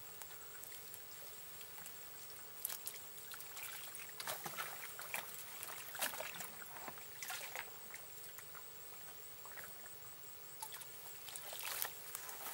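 Water sloshing and splashing as a plastic bucket is dipped and emptied into shallow pond water: an irregular string of small splashes and drips, busiest in the middle and again near the end.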